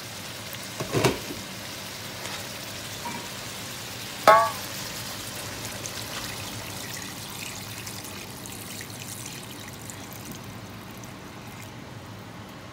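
Chicken broth poured from a metal pot into a hot wok of sautéed chicken and carrots, the liquid running in and sizzling. A sharp metal clank about a second in, and a second, briefly ringing clank a few seconds later, as the pot knocks against the wok.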